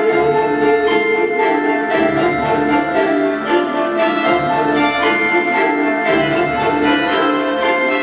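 Instrumental music with bright, bell-like mallet percussion notes over sustained tones, playing continuously.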